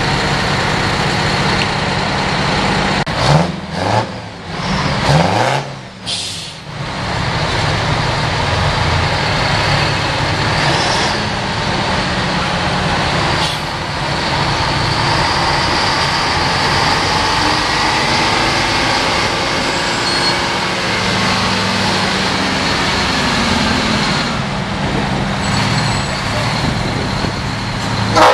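Heavy Detroit Diesel-powered trucks running as they pull away. The engine note rises and falls in several quick revs a few seconds in, and swells more slowly later on.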